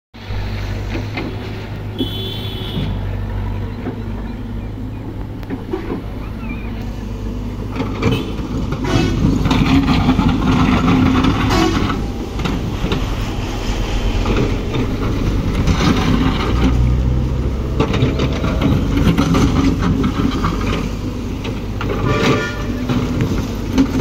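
Caterpillar hydraulic excavator at work: its diesel engine runs steadily and works harder from about eight seconds in as it digs, with repeated scraping and knocks from the bucket in soil.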